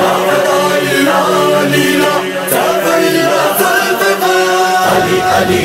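Manqabat, an Urdu devotional song: chanted, held vocal lines over music. A deep bass comes in about five seconds in.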